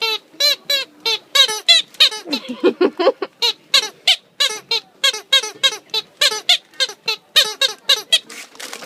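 Squeaky dog toy squeezed over and over, about three short squeaks a second, each rising and falling in pitch. A lower, wavering squeak comes a couple of seconds in.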